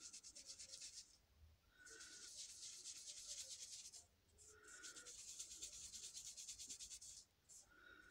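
Make-up brush being cleaned, its bristles scrubbed rapidly back and forth against a surface: three quiet spells of scratchy brushing with short pauses between them.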